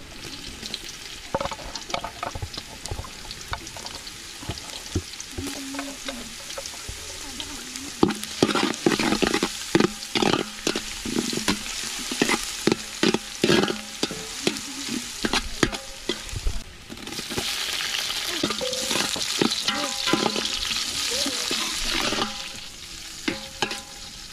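Sliced onions frying in oil in a metal pot, sizzling, while a metal spoon stirs and scrapes against the pot with many sharp clanks. The sizzle swells louder for several seconds in the second half.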